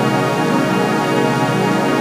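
Synthesized vocoder sound holding an F major chord: a steady, dense drone of many tones with a slight shimmer and no changes of note.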